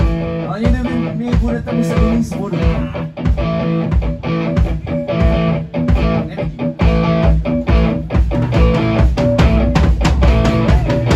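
Live rock band playing, electric guitars to the fore over bass guitar and drums.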